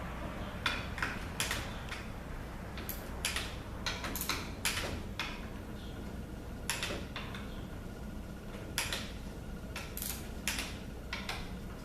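Irregular sharp metallic clicks and clinks of hand tools and small metal transmission parts being handled and set down on a workbench, over a steady low hum.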